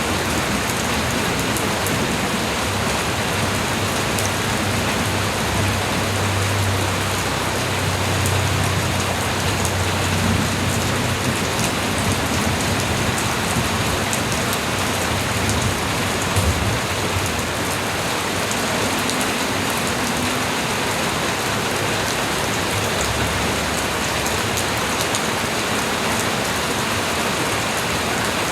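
Steady light rain falling, a dense patter of drops on surfaces. A low rumble rises and fades in the middle.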